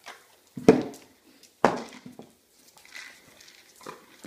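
Kong Wobbler, a hard plastic food-dispensing toy, being nosed over by a dog and knocking against a tile floor and door frame: two sharp clunks about a second apart, then softer rattling and a lighter knock near the end.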